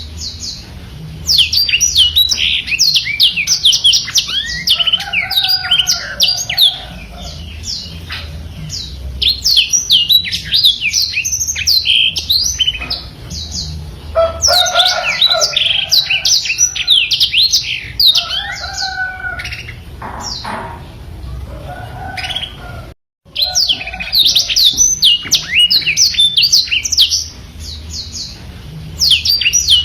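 Black-throated canary (blackthroat) singing a fast, unbroken song of high chirps and rolling trills, in loud bursts with short lulls. The sound cuts out completely for a moment about 23 seconds in.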